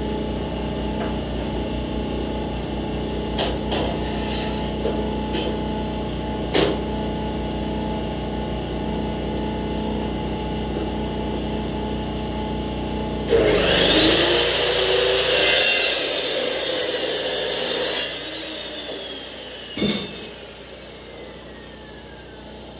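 Steady mechanical hum with a few knocks, then a chop saw's motor starts with a rising whine and cuts through steel round bar for about four and a half seconds. The cut ends suddenly, the blade spins down with a long falling whine, and there is a single clank as it winds down.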